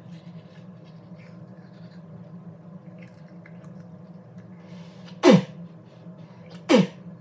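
Faint toothbrush scrubbing, then someone spits toothpaste foam into a sink twice, about five and seven seconds in, each spit a loud, sharp burst that drops in pitch.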